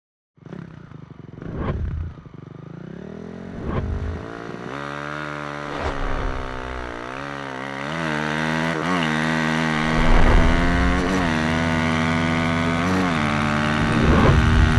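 Dirt bike engine running and being revved again and again, its pitch rising and wavering with each twist of the throttle.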